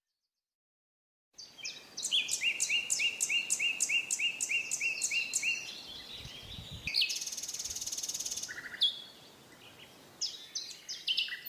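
Songbird calling outdoors: after about a second of silence, a rapid series of short, repeated chirps, about four a second, then a brief high buzzy trill and a few more chirps near the end.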